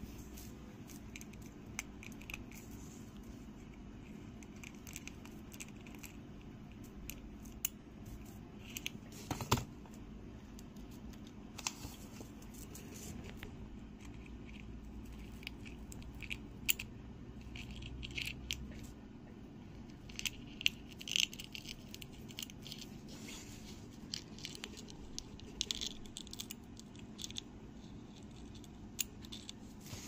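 Small scissors snipping and cutting through a cicada's thin abdominal shell: scattered faint crackles, clicks and short scrapes, over a low steady hum.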